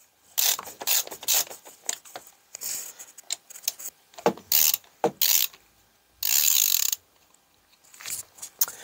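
Ratchet wrench on an extension bar clicking in short runs as it undoes the cam cover bolts on a 125cc pushrod engine, with one longer, faster run of clicks about two-thirds of the way through.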